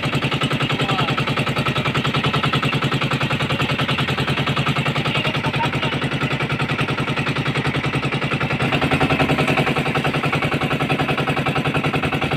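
Fishing boat's engine running steadily with an even, rapid knocking beat. It gets a little louder about two-thirds of the way through.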